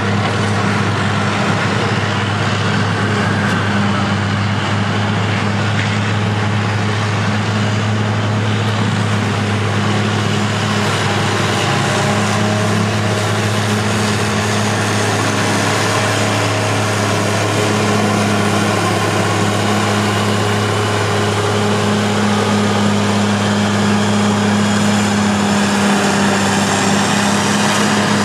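Heavy diesel engines of several classic earthmoving machines, among them a motor grader, an excavator and motor scrapers, running at once: a steady, loud, low engine drone.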